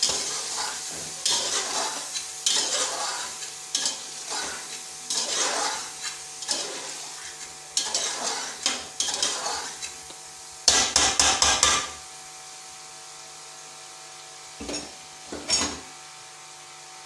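Metal spoon scraping and stirring mutton as it fries in a pressure cooker pot, in irregular strokes. About eleven seconds in comes a quick run of metal clatter against the pot. After that the pot sizzles steadily, with two short knocks.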